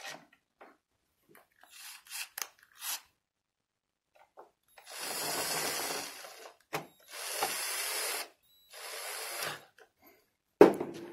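Cordless drill-driver driving screws into a mortise lock's faceplate, running in three short spells of about a second each, with a sharp knock near the end.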